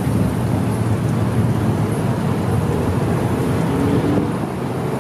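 Steady road traffic: cars and a pickup driving past on a multi-lane road, engines running and tyres on the pavement.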